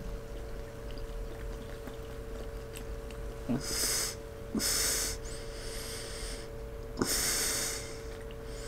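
A person chugging a bottle of cola without stopping, drawing sharp, noisy breaths through the nose between swallows: four short hissing breaths, the first about three and a half seconds in and the last about seven seconds in.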